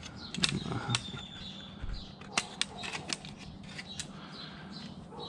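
Scattered light clicks and taps of hands handling a thin aluminium part and small aircraft rivets, the rivets being pushed through and pulled out of its holes.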